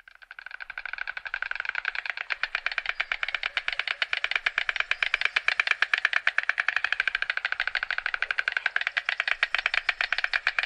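White stork bill-clattering: the bill snapping open and shut in a fast, even rattle of wooden-sounding clacks. It starts out of silence, grows louder over the first two seconds and then holds steady.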